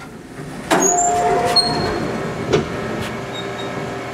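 A vending machine being shaken by hand to free a stuck snack: a sudden burst of rattling and rumbling under a second in, with a sharp knock about two and a half seconds in.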